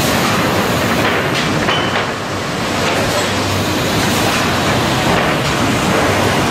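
Automatic plywood sanding machine and its roller conveyor running, a loud, steady machine noise with a few short clicks.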